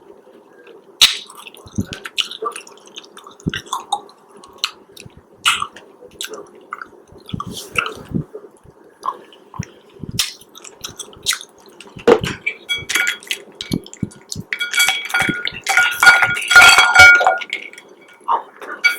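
Scattered sharp clicks and taps of small hard objects being handled, with a louder stretch of clinking and ringing about fifteen seconds in.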